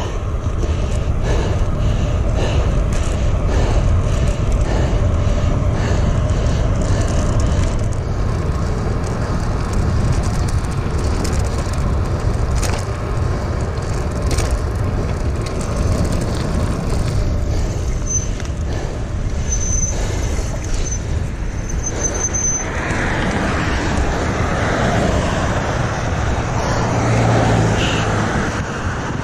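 Wind rushing over the microphone of a moving bicycle: a steady, loud rumble, with road and traffic noise. About three-quarters of the way through, a hiss comes up over it.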